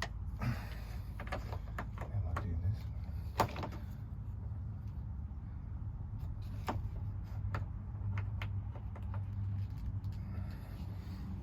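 Scattered clicks and knocks of hands working PEX pipe, crimp rings and fittings, the loudest about three and a half seconds in, over a steady low hum.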